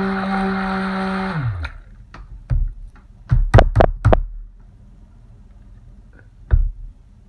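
Stick blender motor running steadily in thick soap batter, switched off about a second and a half in and winding down. Then a series of sharp, loud knocks, several in quick succession around three to four seconds in and one more near the end.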